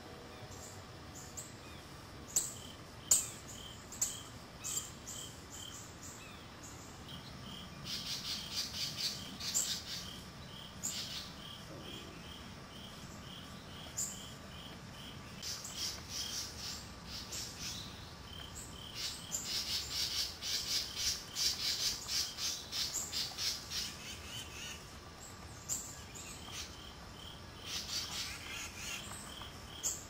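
Woodland birds calling: a few sharp single chips early on, then several bursts of rapid, high chattering notes. Underneath runs a steady, evenly spaced chirping of an insect.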